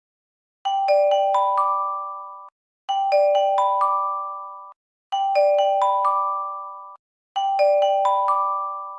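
Japanese J-Alert-style emergency chime: a bell-like four-note rising arpeggio, played four times, each time ringing out and fading before the next.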